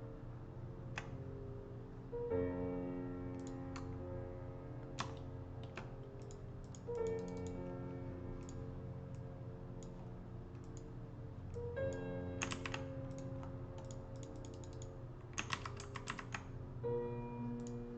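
Computer keyboard keys and mouse clicking in scattered single clicks and quick clusters, over calm background music with sustained keyboard notes.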